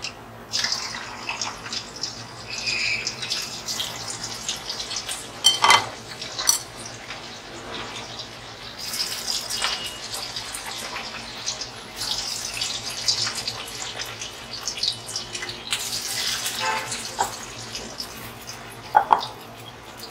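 Chicken pieces coated in egg white and cornflour sizzling as they deep-fry in hot oil in a steel kadhai, a steady crackling hiss. A few sharp knocks come about six seconds in and again near the end.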